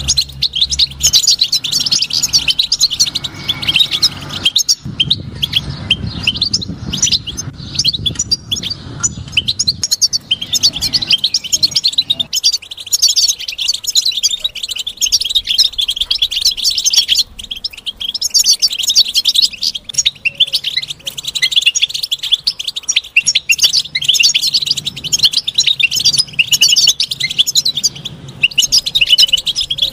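European goldfinch singing: a fast, unbroken twittering of high chirps and trills.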